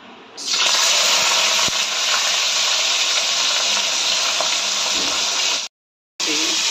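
Sliced onions dropped into a cup of hot oil in a kadhai, setting off a sudden loud, steady frying sizzle about half a second in. The sizzle cuts out for about half a second near the end and then resumes.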